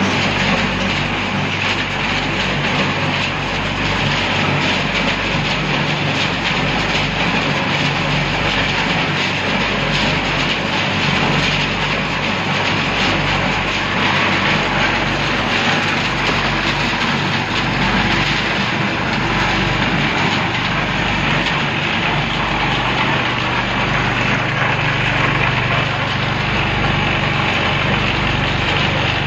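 Machinery running steadily, with a low throb that recurs about every one and a half seconds.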